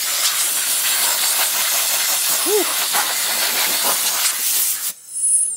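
Compressed air rushing from a handheld air blow-gun nozzle, blowing dust off electronics: a loud, steady hiss that cuts off abruptly near the end.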